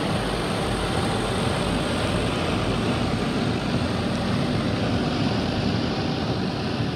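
Soft-cloth brushes of a WashWorld Profile MAX automatic car wash scrubbing over the car while water sprays, heard from inside the car: a steady, dense rush of noise over a low rumble.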